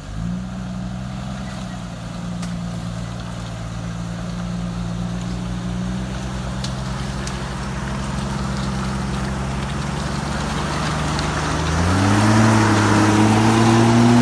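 Off-road 4x4's engine running steadily as it pulls through deep mud, its revs climbing and getting louder about twelve seconds in.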